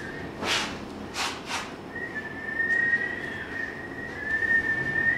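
A few swishes of a shaggy rug being lifted and laid on a tile floor, then a high, steady whistling tone that wavers slightly, starting about two seconds in.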